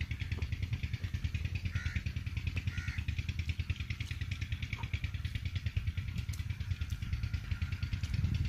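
An engine running steadily in the background with a fast, even beat.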